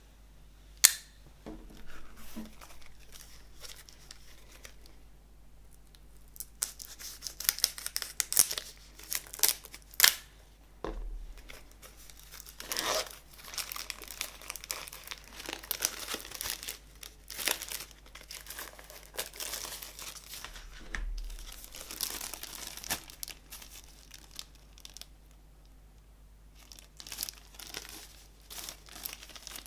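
Plastic shrink-wrap on a CD being torn and crinkled off by hand, in bursts, with a sharp click about a second in and a short pause near the end.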